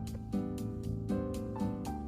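Background instrumental music led by a piano, notes struck at a steady rhythm.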